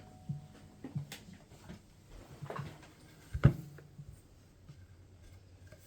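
A mechanical keyboard being handled during assembly, with keycaps pressed onto the switches: scattered light clicks and knocks, one much louder knock about three and a half seconds in.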